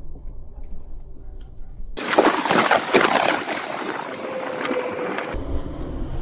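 Wind buffeting the microphone beside a highway, with traffic passing. About two seconds in, a sudden louder, gusty rush of wind and road noise; near the end it turns to a lower rumble as a car goes by.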